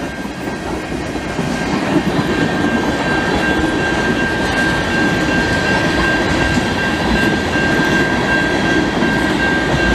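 CN freight train of tank cars and covered hoppers rolling past close by: a steady rumble and clatter of steel wheels on the rails, with a thin steady high whine through most of it.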